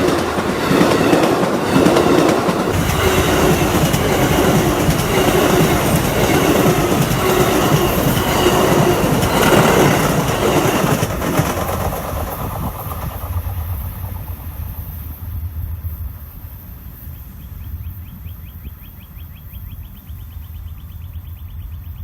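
Amtrak passenger train passing: its wheels clack rhythmically over the rail joints, loud for about the first eleven seconds, then fading as the train moves away.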